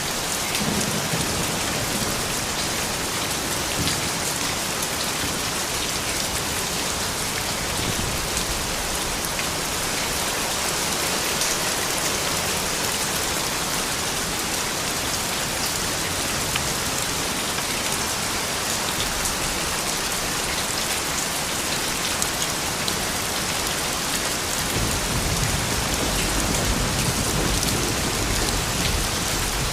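Steady, gentle rain falling, with a low rumble coming in under it about 25 seconds in.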